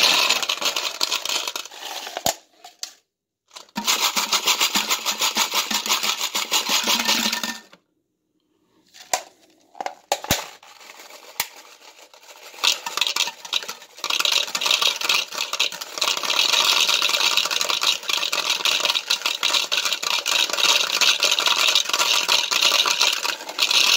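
Copper-jacketed Sierra rifle bullets poured from a plastic cup through a narrow plastic funnel into a plastic powder container, a dense clattering rattle of metal on plastic. It comes in several long pours with short breaks, and the longest pour runs through the second half.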